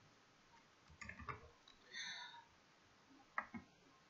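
Near silence with a few faint computer-mouse clicks, two of them close together about three and a half seconds in.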